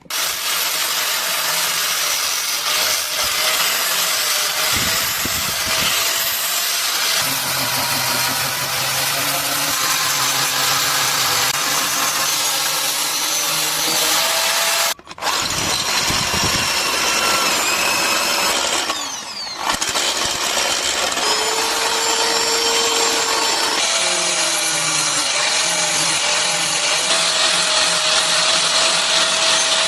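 Power tool grinding metal: a steady, harsh hiss with a whine that drifts in pitch as the load changes. It breaks off briefly about 15 seconds in and again about 19 seconds in.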